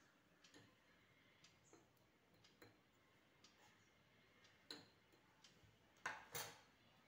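Near silence broken by faint, irregular clicks of a steel spoon against a steel plate and glass jar as chilli-powder mix is spooned in, with a louder short clatter about six seconds in as the spoon is set down in the plate.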